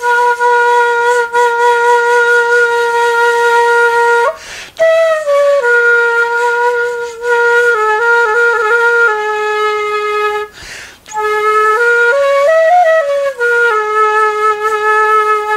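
Danso, the Korean end-blown vertical flute, played in long held notes, with two short breaks for breath. In the middle the notes waver quickly up and down, and near the end the pitch rises briefly and falls back before settling on a long held note.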